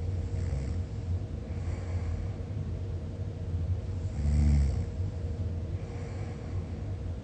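A sleeping person snoring, a low rasping snore on each breath every second or two, with one louder, pitched snore a little past halfway.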